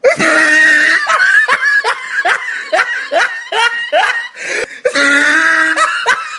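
Loud, high-pitched laughter that starts suddenly and runs as a quick string of short falling 'ha' pulses, about two to three a second.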